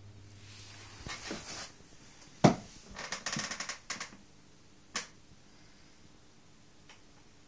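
Handling noise: a loud, sharp knock about two and a half seconds in, a quick rattle of clicks just after, and a second knock near five seconds, as the camera is moved. A low hum stops about a second in.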